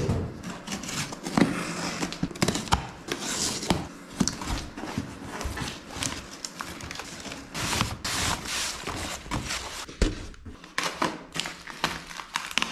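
A cardboard shipping box of live plants being opened and unpacked by hand: an irregular run of rustling, crinkling and knocks as the flaps and packing are pulled apart.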